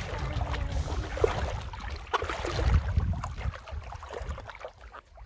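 Shallow river water splashing and sloshing around a child's legs as he wades. The splashing dies down near the end.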